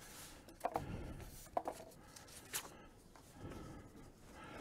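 Quiet handling and rustling of paper sheets being picked up, with a few faint short knocks.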